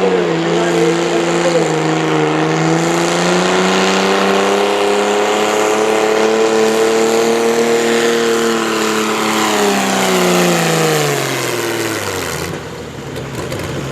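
Pulling tractor's engine running hard under load as it drags the sled, with a steady pitch that drifts a little. Over the last few seconds the pitch falls steadily as the engine slows and the pull comes to an end.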